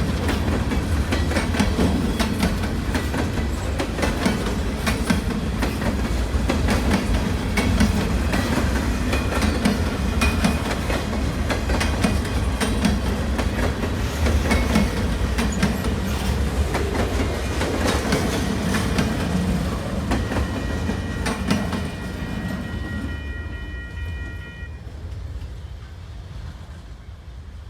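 A train rolling past, its wheels clicking over rail joints over a heavy rumble. The sound fades away over the last few seconds. Around twenty seconds in, a steady high-pitched tone sounds for about four seconds.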